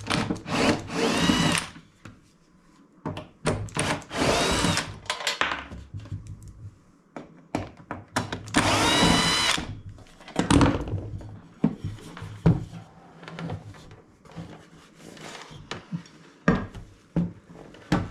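Cordless drill-driver run in three short bursts, its whine rising and falling in pitch as it spins up and slows, with clicks and clunks of handled parts between. It is being used to undo screws while a chip extractor is taken apart.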